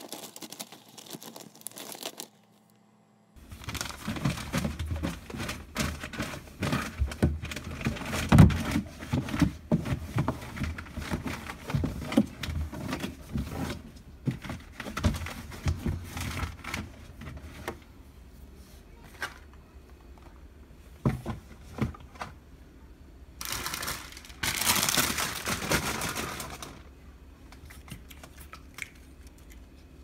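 Newspaper rustling and crinkling as it is spread and pressed flat in a refrigerator drawer, with light knocks from handling. A louder rustle lasts about three seconds near the end.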